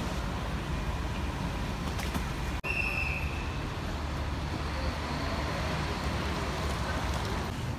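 Steady road traffic noise at an airport departures kerb: a low rumble of passing cars and buses. A short high-pitched tone sounds about three seconds in.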